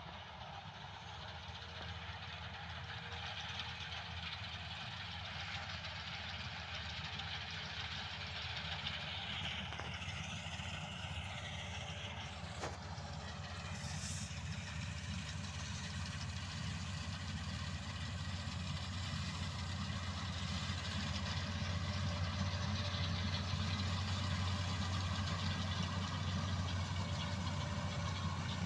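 New Holland combine harvester running steadily, its diesel engine drone with machinery noise over it, slowly growing louder.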